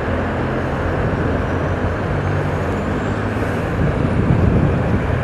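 Road traffic running close by: a steady hum of vehicle engines over road noise, swelling slightly about four seconds in.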